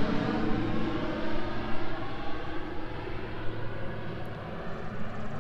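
Single-engine crop-dusting plane flying low over the fields, a steady engine and propeller drone that fades as the plane draws away.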